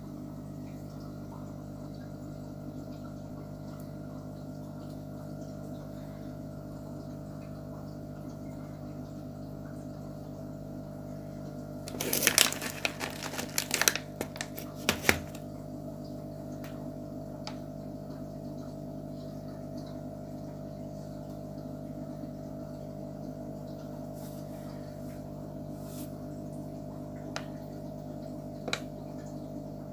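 Steady electric hum of an aquarium's filter pump running, made of several fixed tones. Near the middle there is a brief burst of clicks and rattling, louder than the hum, and a few single ticks follow later.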